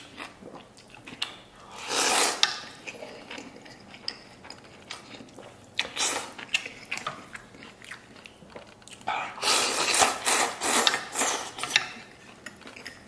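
A person loudly slurping noodles out of spicy broth: a long slurp about two seconds in, a short one around six seconds, and a longer drawn-out slurp from about nine to twelve seconds. Chewing and small clicks come between the slurps.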